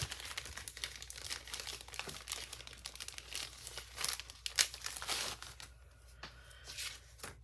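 Clear plastic resealable bag crinkling and rustling as a packet of watercolour board is worked out of it by hand: a run of irregular crackles, loudest about four and a half seconds in, thinning out near the end.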